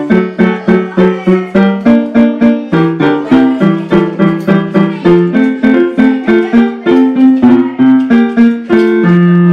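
Digital piano played by hand: a steady stream of notes and chords, about three a second, ending on a held chord.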